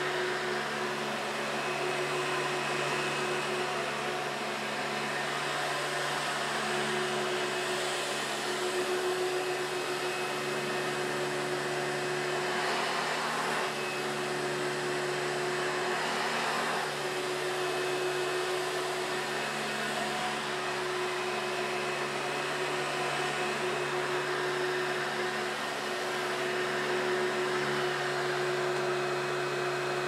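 Hoover C1403 commercial upright vacuum cleaner running steadily on carpet: a steady motor hum and whine with airflow rush. Its motor is a replacement taken from a Hoover Spirit.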